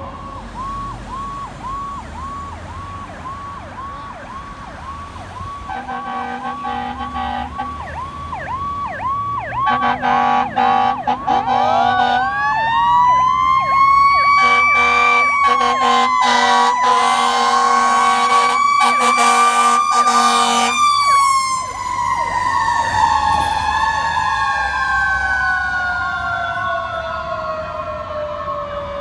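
Fire truck responding with an electronic siren on a fast yelp throughout. Long air horn blasts come four times from about six seconds in. A mechanical Q siren winds up from a low growl to a high wail about twelve seconds in, holds there under the horns, and then slowly winds down over the last eight seconds.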